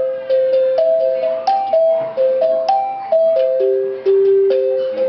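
Dinner chime struck note by note, playing a ringing tune on four pitches at about two or three notes a second, each note starting sharply and fading as the next is struck.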